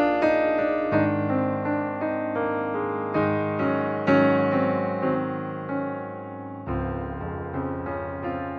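Background piano music: a slow melody of single notes and chords, each struck note fading away.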